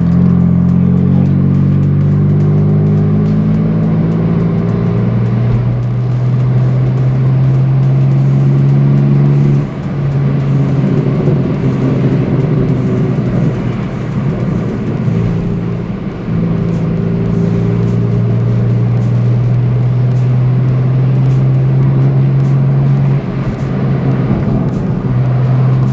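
BMW M4 F82's DME-tuned S55 twin-turbo inline-six heard from inside the cabin through its REMUS exhaust while driving. The engine note rises in the first few seconds, then holds steady for long stretches, with short dips in pitch and level about 10, 16 and 23 seconds in.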